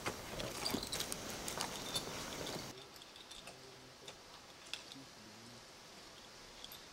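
Irregular light clicks and knocks of a climber's boots and climbing gear against an aspen trunk during the climb. They are denser in the first few seconds, then fainter and sparser from about three seconds in.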